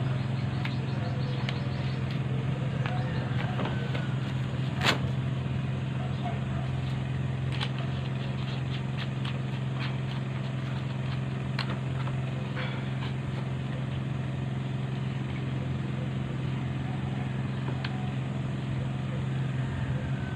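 Scattered clicks and taps of a cordless drill being handled while its bit is changed in the chuck, with one sharper click about five seconds in, over a steady low mechanical hum.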